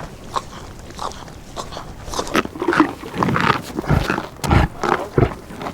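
Reindeer grunting: a run of short, rough grunts that starts about two seconds in and gets louder, with faint clicking before it.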